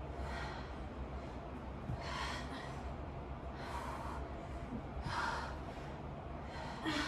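Women breathing hard from exercise exertion: five short, sharp breaths spaced about one and a half to two seconds apart.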